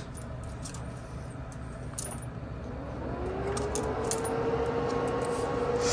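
Cooling fans of a 1990s Windows NT management server, still its original unreplaced fans, spinning up: a steady fan rush with a whine that starts rising in pitch about two and a half seconds in and then levels off, the whole getting gradually louder.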